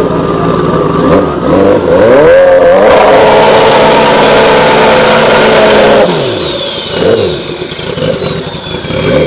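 Pro Street drag motorcycle doing a burnout. The engine idles, revs up about two seconds in and is held at high revs for about three seconds under the hiss of the spinning rear tyre, then the throttle snaps shut. A few short revs follow while a high whistle falls steadily away.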